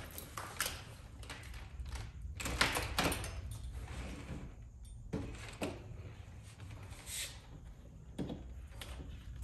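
A wiring harness being handled and spread out: loose wires rustle and slide, and plastic connectors knock together in a few short, irregular spells.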